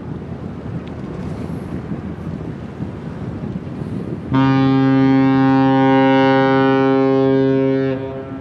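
Ship's horn sounding one long blast of about three and a half seconds at a steady pitch, starting and stopping abruptly about four seconds in.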